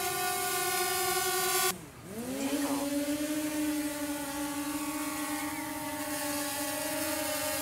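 DJI Mavic Air drone hovering, its propellers giving a steady high-pitched whine. A little under two seconds in it cuts off, and the motors spin up again with the pitch rising, then settling to a steady, lower whine with Master Airscrew Stealth low-noise propellers fitted.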